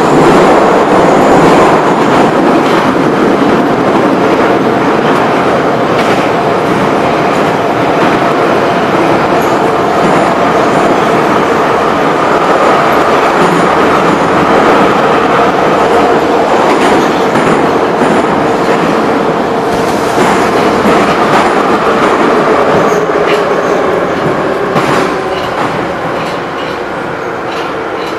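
An older Ezh/Em-series Moscow Metro train heard from inside a car, running through the tunnel: steady wheel and track noise with a faint humming tone and a few rail-joint clicks. It gets quieter over the last few seconds as the train slows into the station.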